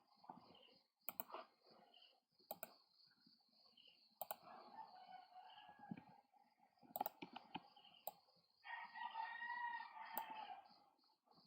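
Faint, scattered computer mouse clicks while line segments are drawn in CAD software. A rooster crows in the background about nine seconds in, over a faint, steady, pulsing high chirr.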